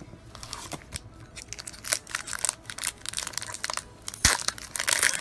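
Crinkling and crackling of a foil Pokémon trading-card booster pack wrapper being handled, in quick irregular bursts that grow busier after the first second.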